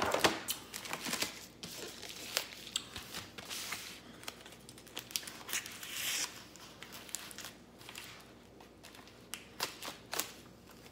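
Plastic packaging crinkling and rustling in short irregular bursts as graded comic slabs are unwrapped and handled, loudest right at the start.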